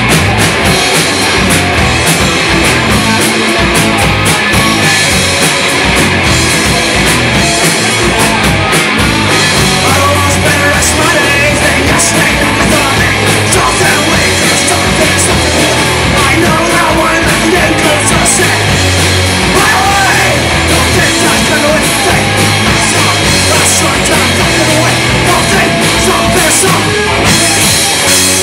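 Punk rock band playing live and loud: distorted electric guitar and a driving drum kit.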